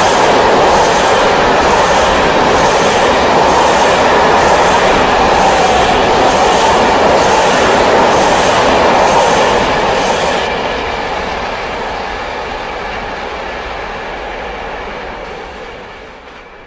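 Freight train of covered box wagons passing at speed: loud rolling noise with a regular clickety-clack of wheels. About ten seconds in, the noise drops as the last wagons pass, then fades as the train moves away.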